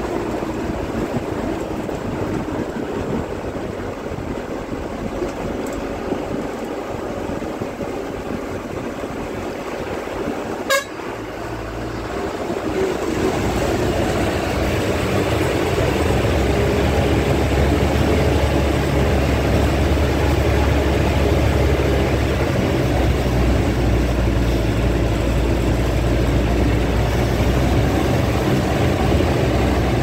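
Bus engine and road noise heard from inside the cabin while driving a winding hill road. About halfway through, after a single sharp click, the engine gets deeper and louder and stays that way, working harder under load.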